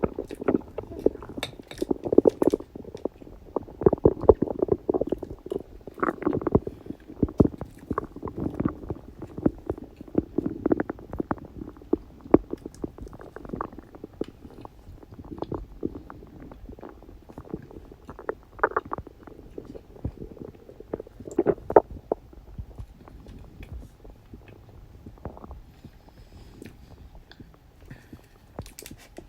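A person's stomach growling and gurgling as it digests: irregular low bubbling and popping, busiest in the first dozen seconds, then sparser, with two louder gurgles a little past the middle.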